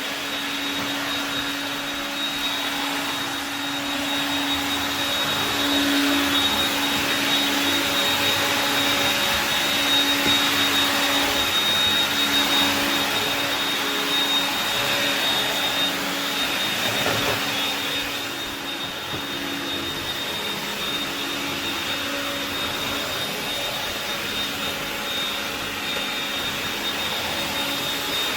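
AEG CR7 cordless vacuum cleaner, fitted with a brushless motor, running steadily: a high, even whine over the rush of air, a little louder through the middle of the stretch.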